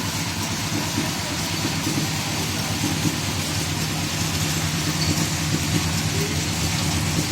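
An engine running steadily at idle, with an even hiss over it.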